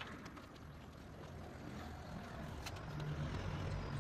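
Low hum of a motor vehicle engine that grows steadily louder, with a few faint clicks.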